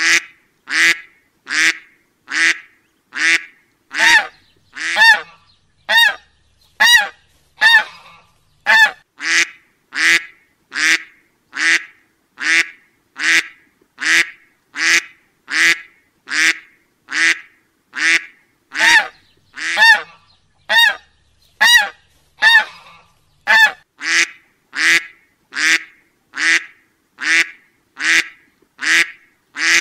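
Duck quacks, short honking calls repeated at a very even pace, a little more than one a second.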